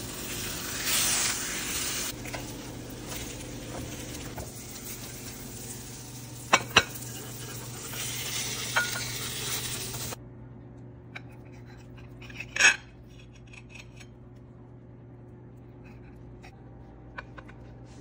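Slices of French toast sizzling in butter in a frying pan, with a couple of sharp clinks of a utensil against the pan. About ten seconds in, the sizzling stops abruptly. Quieter clinks of a spatula on plates follow, with one louder knock.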